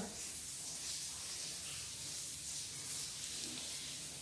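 Steady low hiss of background room noise with a faint hum beneath, and no distinct events.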